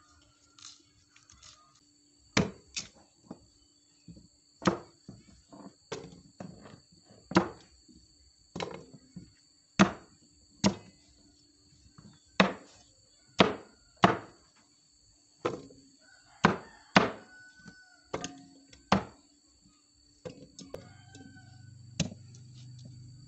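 Knife chopping cassava root on a thick wooden chopping block: sharp, irregular knocks, roughly one a second, as the blade cuts through the tuber into the wood. A low steady hum comes in near the end.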